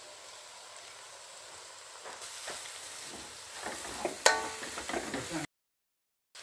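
Shredded cabbage and carrot sizzling in hot oil in a metal wok while a spatula stirs and scrapes them. The stirring grows louder about two seconds in, with a sharp knock and a brief ring against the wok about four seconds in. The sound then cuts off to silence near the end.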